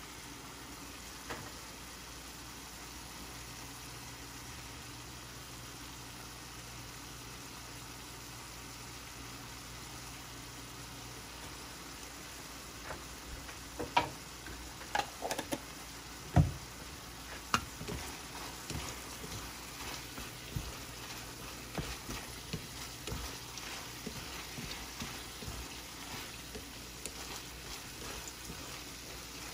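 Sliced beef sizzling in a stainless steel skillet. About halfway through, wooden chopsticks start stirring it, clicking and scraping against the pan, with one louder thump a few seconds after the stirring begins.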